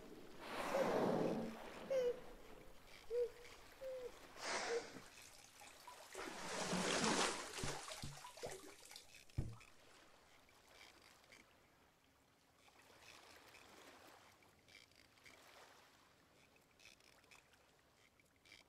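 Sea-water sound effects: three swells of rushing, splashing water, with a few short pitched squeaks in the first few seconds, then only faint water noise for the rest.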